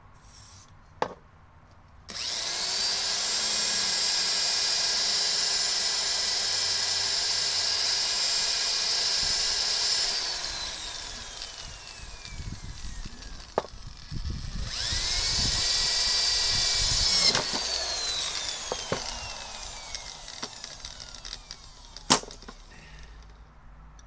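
Electric drill drilling a hole: the motor starts sharply, runs steadily for about eight seconds, then winds down in pitch. It runs again for a few seconds and winds down once more, with a sharp click near the start and another near the end.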